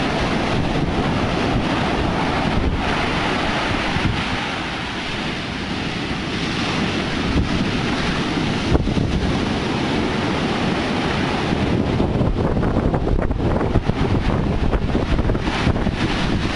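Heavy storm surf from a passing hurricane breaking and washing up a sand beach at high tide, a dense steady rush of water. Wind buffets the microphone with a constant low rumble.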